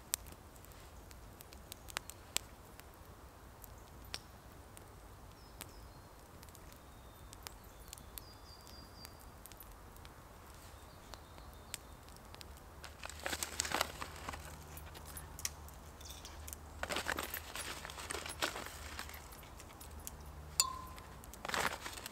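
Small wood campfire crackling under a hanging kettle, with scattered sharp pops over a steady low rumble and a few faint bird chirps. From just past halfway there are several bursts of rustling.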